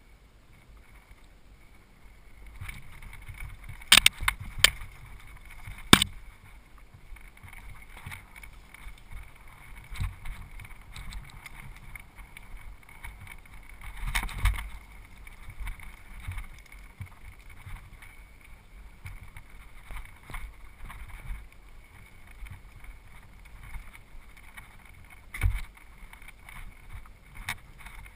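Mountain bike riding down a trail: a steady rumble of tyres and rattling bike parts, broken by sharp clacks as the bike hits bumps. The loudest come about four to six seconds in, with another near the end.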